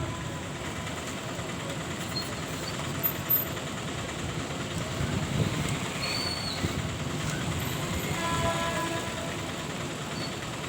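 Passenger express train hauled by a WAP7 electric locomotive rolling into a station: a steady rumble of wheels on rail, with two sharp clanks about three seconds in.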